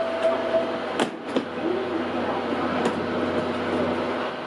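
Stationary Tobu 500-series Revaty electric train at the platform: a steady equipment hum, with two sharp knocks about a second in and another near three seconds.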